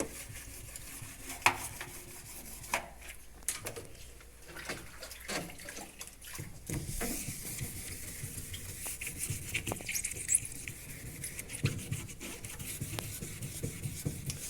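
Wet scrubbing of a washing machine's surfaces by hand. Scattered knocks and clicks in the first half, then steady, rapid rubbing strokes from about halfway through.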